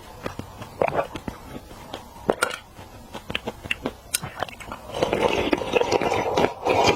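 Close-miked chewing and biting of seafood, with scattered sharp clicks and crunches, turning into a denser stretch of wet chewing noise near the end.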